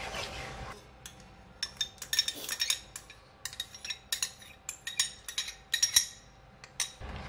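A spatula scrapes briefly through thick frying masala paste in a non-stick pan. Then, as whisked yogurt is poured in, come irregular clusters of sharp clicks and pops from the pan, starting about a second and a half in.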